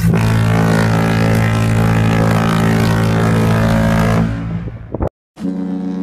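Queen Mary 2's deep ship's horn sounding one long blast that fades out after about four seconds. A second ship's horn starts just before the end.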